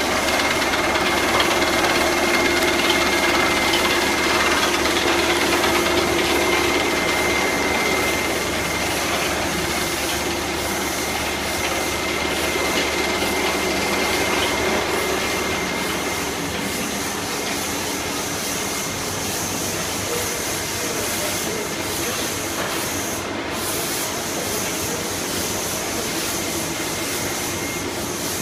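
Pouch handling and packing machinery running: a steady mechanical noise with hiss and a thin, high steady whine that fades out about half-way through.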